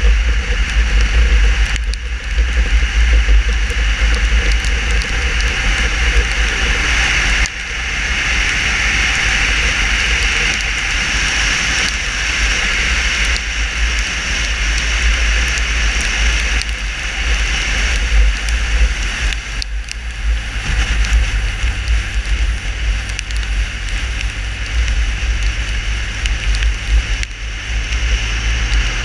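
Motorcycle riding at road speed on a wet road, heard through a helmet camera's microphone: heavy wind buffeting over the engine and the hiss of tyres on wet tarmac. The noise dips briefly about seven and a half seconds in, and a steady low hum comes in about twenty seconds in.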